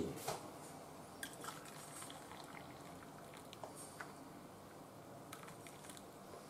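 Faint liquid sounds and a few light clicks as water is poured from a kettle into a small metal measuring cup.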